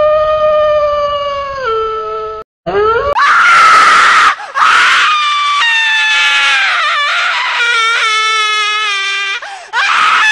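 A person's voice howling like a wolf: a long held howl that drops in pitch a little under two seconds in, then loud rough screams, falling wails, and a fast warbling cry about eight seconds in, ending in another scream.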